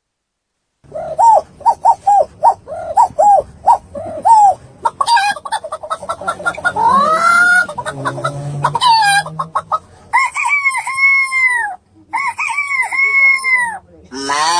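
Chicken and rooster sound effects: a quick run of short clucks, then a flurry of squawks with a rising cry, then two longer crowing calls near the end.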